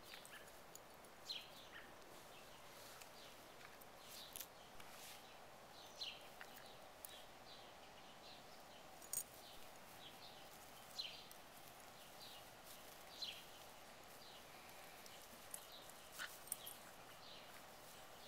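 Near silence outdoors, broken by faint, short high chirps that fall in pitch every second or two, with a few brief soft crackles.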